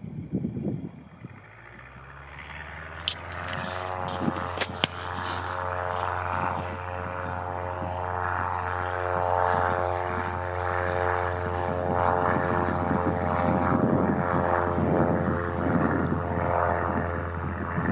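Socata TB-10 Tobago's four-cylinder piston engine and propeller throttling up for the takeoff run. The engine note rises over a second or two, then holds steady and grows louder as the plane accelerates. A few sharp clicks sound about three to five seconds in.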